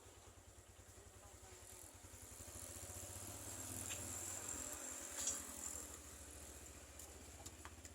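A motor vehicle's engine hum swelling and fading as it passes, over a steady high-pitched insect buzz, with a few faint clicks.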